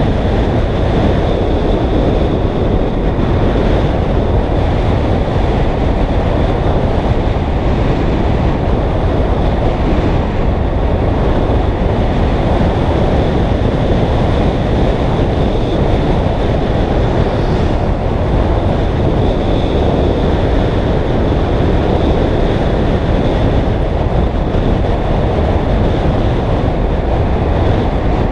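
Loud, steady wind rush buffeting the microphone of a camera riding along on a triathlon bike at descending speed, with a thin steady high tone running above it.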